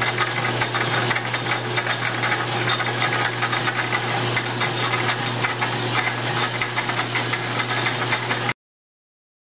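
Metal lathe turning an aluminium casting: a steady motor hum under a dense, even rattle of cutting and flying chips, cutting off abruptly near the end.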